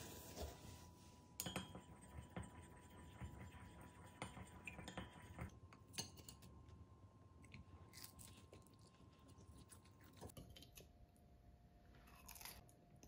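Faint close chewing and crunching of a crisp-skinned Taiwanese egg crepe (dan bing), with a few light clicks of chopsticks against a ceramic plate.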